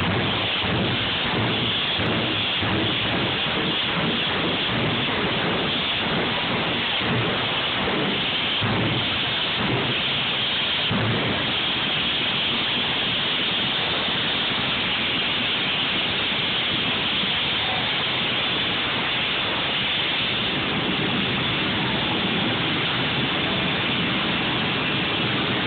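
Jet car's jet engine running loud and continuously: a dense rushing noise that pulses unevenly for the first ten seconds or so, then holds steady.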